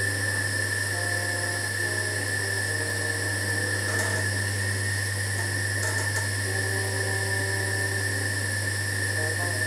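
Electric pottery wheel motor running steadily as clay is thrown, a low hum with a steady high whine over it. A faint melody of held notes plays along.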